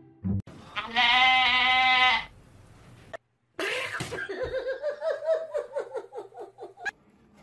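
Grey shorthair cat giving one long, loud meow at a steady pitch for about two seconds, mouth wide open, in disgust after sniffing a foot. A couple of seconds later comes a quick run of short, squeaky calls, several a second.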